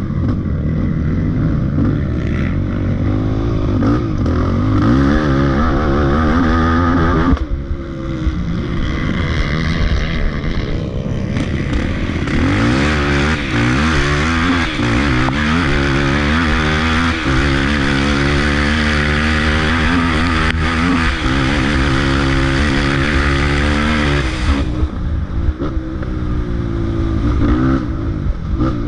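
A racing ATV's engine run hard on a muddy trail, its pitch climbing and falling again and again with throttle and gear changes. There is a short lift off the throttle about seven seconds in. A steady hiss rides over the engine from about twelve seconds in until about twenty-five.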